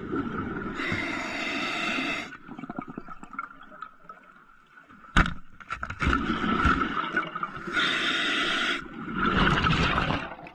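A diver breathing through a regulator on surface-compressor (hookah) air, heard underwater: two hissing inhalations, each followed by a gurgle of exhaled bubbles, with a sharp knock about five seconds in.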